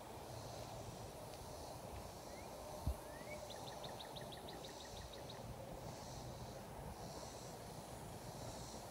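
Faint outdoor ambience: a steady hiss and low rumble, with a bird's short trill about three to five seconds in, two rising chirps followed by a quick run of ticks. A brief low bump on the microphone comes near three seconds.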